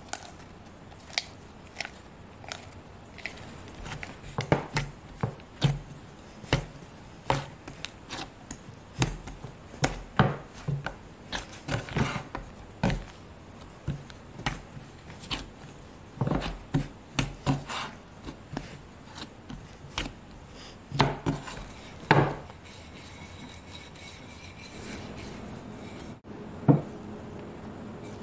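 Hands kneading soft bread dough, slapping and pressing it in a stainless steel bowl and against a wooden board: irregular soft thumps and slaps, sometimes several a second. About three seconds before the end the slaps stop and a steady hum takes over, broken by one sharp knock.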